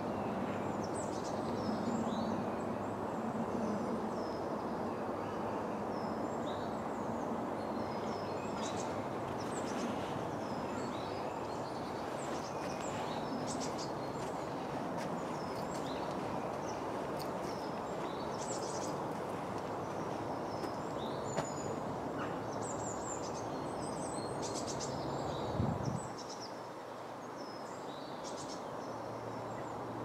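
Small woodland birds calling and singing, many short high chirps scattered throughout, over a steady background rush of noise. A brief low thump comes near the end, after which the background is a little quieter.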